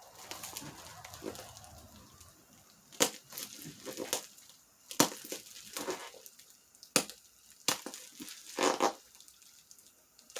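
Plastic packaging crinkling and rustling as it is handled and opened. Several sharp clicks and taps of hard pieces knocking together sound in between.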